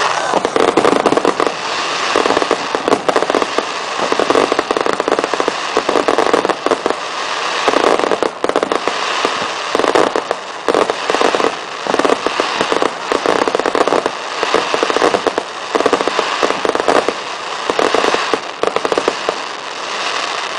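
Aerial fireworks going off in a dense, continuous barrage of rapid crackling reports and bangs, with louder clusters every second or two.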